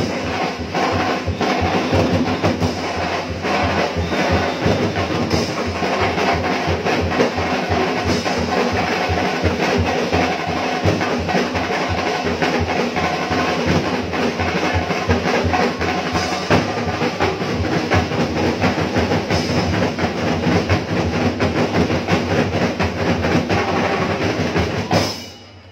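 Drums playing a fast, steady percussion beat that stops abruptly near the end.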